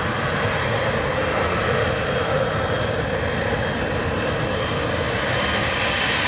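Boeing 777-300ER's twin GE90-115B turbofans running at low taxi thrust: a steady jet roar with a thin high whine on top.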